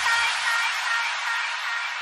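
Tail of an electronic intro jingle fading out: a high shimmering wash with a few held notes and no beat, growing steadily quieter.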